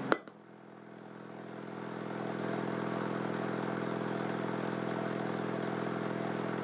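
Subwoofer driven with a low test tone of about 42 Hz, heard as a buzzy drone full of overtones. It starts with a click and swells over about two seconds, then holds steady.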